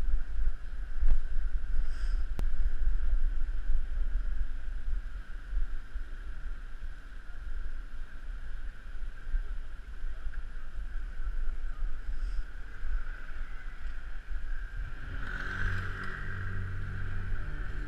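Wind buffeting a head-mounted action camera's microphone while cycling, a steady low rumble with a hiss over it. A few faint clicks come through, and a deeper hum joins about three quarters of the way in.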